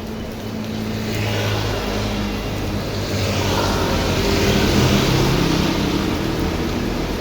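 Heavy rain with a motor vehicle's engine running close by, growing louder from about a second in and loudest around the middle.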